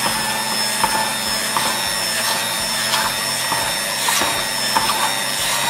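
Electric hand beater running steadily, its whisk beating thick custard and milk in a steel bowl, with light clicks now and then.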